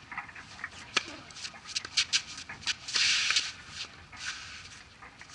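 A tennis racket strikes the ball on a serve about a second in, followed by quick footsteps as the server runs in, with a short scuff of shoes on the court surface midway.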